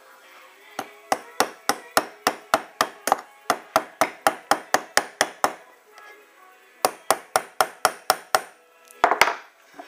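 Small hammer tapping a retaining pin into the metal housing of a Ford Focus bonnet lock cylinder: a quick run of about twenty light taps, a pause, about eight more, then two harder blows near the end.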